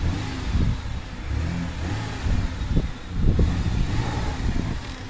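2002 Ford Explorer's 4.0-litre V6 idling steadily; it runs smooth.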